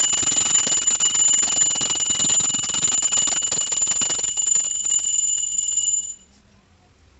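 Puja bell rung rapidly and without a break: a steady high ringing over a dense clatter of strikes, which stops abruptly about six seconds in.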